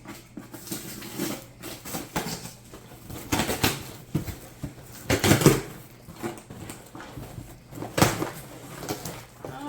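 A cardboard box being opened by hand: rustling, scraping and irregular knocks. The loudest knocks come about halfway through and again near the end.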